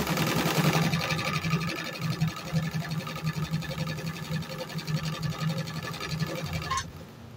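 Motor-driven Pfaff 30-31 sewing machine stitching through fabric at a steady speed, with a fast, even needle clatter over a low motor hum. It stops sharply near the end.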